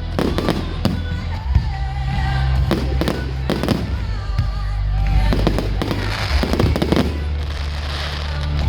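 Fireworks bursting in a string of sharp bangs at uneven intervals, over loud music with a heavy bass.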